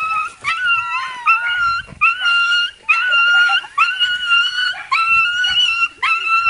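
A schnauzer whining and crying in a rapid string of high-pitched cries, each under a second and starting with a quick upward slide. It is the sound of a dog overwhelmed with excitement at greeting its owner after a long absence.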